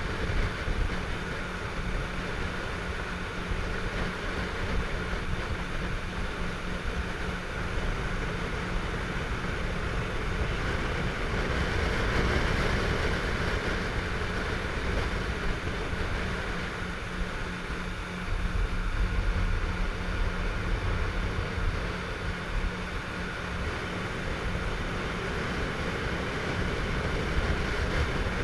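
Motorboat under way: its engine runs at a steady pitch under a constant rush of wind and water.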